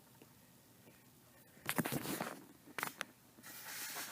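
Quiet handling noise: a few short clicks about halfway through, then a soft rubbing or scraping hiss near the end.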